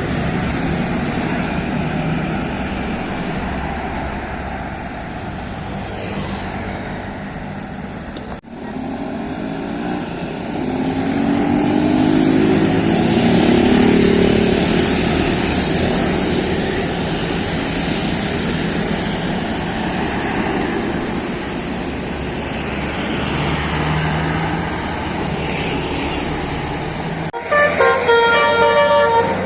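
Heavy bus traffic running steadily, with a louder pass whose pitch rises and falls near the middle. After an abrupt break near the end, a bus's 'basuri' telolet musical horn plays a quick tune of stepped notes.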